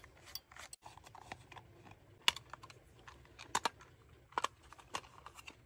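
Scattered light clicks and taps of plastic parts as a cylinder thermostat is taken apart with a screwdriver, its cover and control knob coming off, with a few sharper clicks about two and three and a half seconds in.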